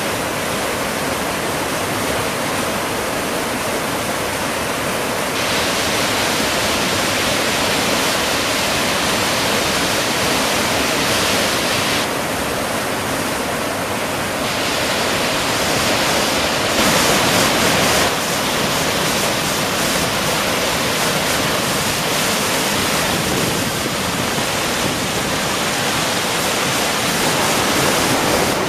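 Flash-flood water rushing and churning over sandstone ledges and pouroffs, a steady, continuous rush whose hiss grows and fades a few times.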